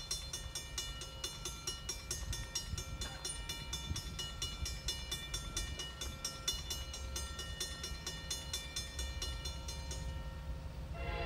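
Distant rumble of an approaching CSX SD70MAC diesel-electric locomotive and its train, with a fast, even ticking over it that stops about ten seconds in. Near the end the locomotive's horn starts to sound, a loud chord of several tones.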